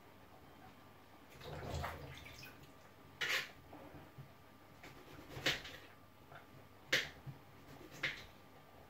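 Kitchen knife chopping tomatoes on a chopping board: four sharp knocks of the blade striking the board, a second or two apart, with a softer handling noise about a second and a half in.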